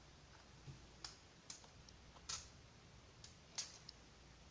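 A few faint, unevenly spaced clicks from a computer keyboard being handled, its keys clicking as it is turned and worked on.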